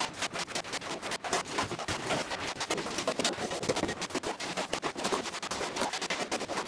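Steel shovel scraping and scooping wet blasting grit off a bare steel floor, in quick, irregular scrapes and knocks.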